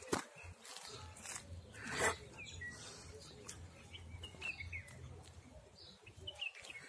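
Homemade exercise clubs swung through the air, with a loud whoosh about two seconds in and a few fainter swishes. Small birds chirp faintly in the background.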